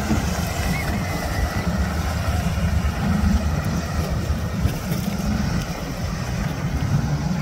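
Wind buffeting the microphone over open water: a loud, uneven low rumble with a hiss of sea noise above it, steady throughout.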